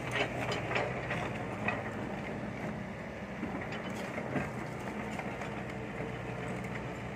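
Kobelco SK50P mini excavator's diesel engine running steadily, with sharp metallic clanks and knocks from the bucket, arm and blade working through rubble, several in the first two seconds and one more about four seconds in.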